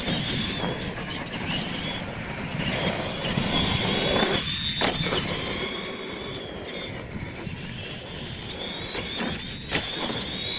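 Electric R/C monster trucks racing, their motors and gears giving a high, wavering whine that rises and falls with the throttle, with a few sharp knocks as the trucks hit the track.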